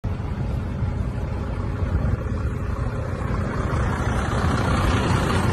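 Steady engine and road rumble of a car driving along a road, heard from inside the car, growing a little louder near the end.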